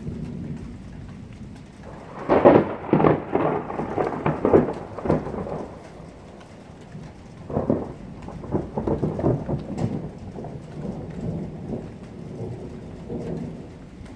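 Thunder from a close storm: a loud peal of rapid cracks and rumbling about two seconds in, then a second, weaker roll starting a few seconds later that fades out gradually, over steady rain.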